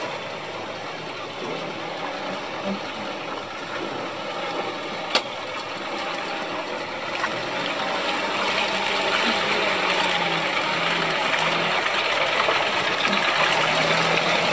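Engine of an old Land Rover Series off-roader running as it crawls along at low speed, growing louder as it draws close. A single sharp click comes about five seconds in.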